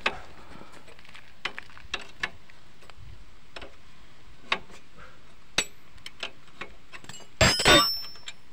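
Scattered light metal clicks and clinks of ring spanners working a motorcycle's 22 mm rear axle nut. Near the end comes a louder metallic clatter with a short ring.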